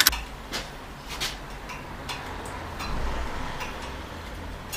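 A few faint, scattered light clicks and ticks over a low rumble.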